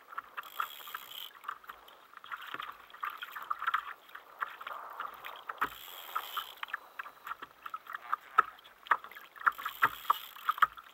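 Sea water lapping and slapping against the hull of a plastic sit-on-top kayak, in irregular small splashes and clicks that come thicker in the second half.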